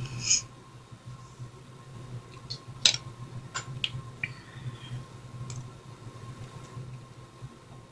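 Low steady electrical hum with a few small clicks and taps, the sharpest about three seconds in, from makeup being handled while lip liner is applied.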